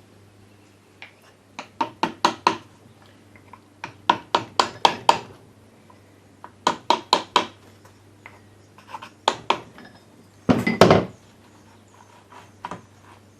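Quick bursts of sharp taps from a wooden dowel used as a mallet on the KTM 65 engine's crankcase, knocking a side of the cases apart, with a louder clatter of metal parts about eleven seconds in.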